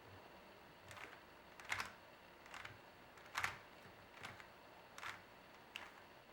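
A Rubik's cube being turned through an algorithm: a series of about seven plastic clicks and clacks as the layers snap into place, roughly one a second, some louder than others.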